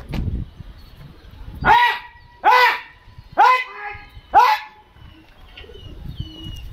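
A dog barking, four barks a little under a second apart, beginning about two seconds in.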